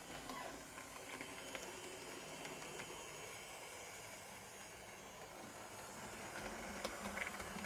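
Hornby OO gauge BR Standard Class 2MT model steam locomotive running along the layout track: a faint steady whirr of its motor and wheels, with a few light clicks.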